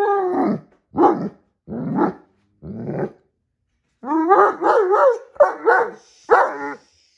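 Great Dane puppy barking and grumbling at a cat. A falling whine at the start is followed by three short barks about a second apart, then a longer wavering call and two shorter ones near the end.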